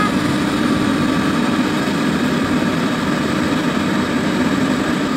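Komatsu hydraulic excavator's diesel engine running steadily as a continuous low drone while it works a load of sand over a dump truck.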